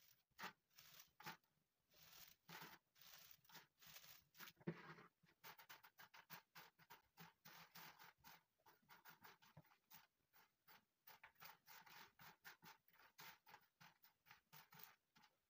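Faint, irregular crackling rustle of dried molokhia (jute mallow) leaves being picked through and swept by hand across a stainless steel tray, with a few louder crackles in the first few seconds.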